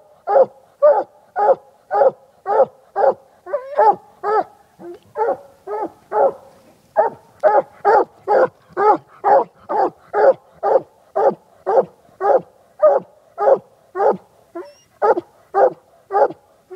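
Coonhound barking treed, in a steady, rhythmic chop of about two barks a second. This is the tree bark that tells the hunter the hound has a raccoon up the tree.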